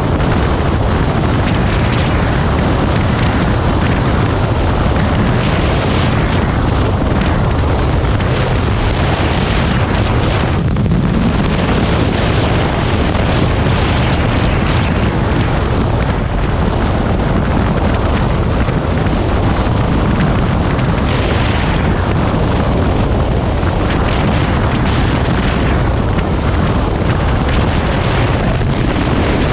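Wind rushing and buffeting over the microphone of a camera on a moving motorcycle: a steady, loud rumbling roar, heaviest in the low end, with road and engine noise blended in underneath.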